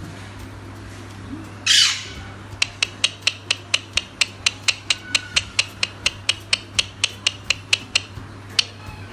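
An Alexandrine parakeet gives one loud, harsh squawk, followed by a long run of sharp, evenly spaced clicks at about three a second.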